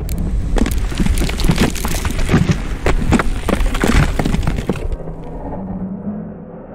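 Logo-reveal sound effect: a dense crackling, shattering burst of many small cracks lasting about five seconds, then dying into a soft, low sustained musical tone.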